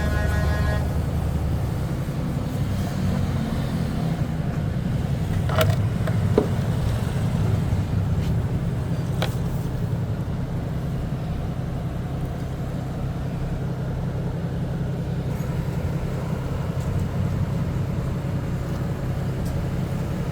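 Steady low mechanical rumble, like an engine running, with a few short sharp clicks about six and nine seconds in.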